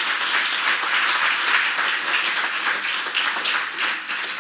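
Audience applauding, a dense even clapping that thins out slightly near the end.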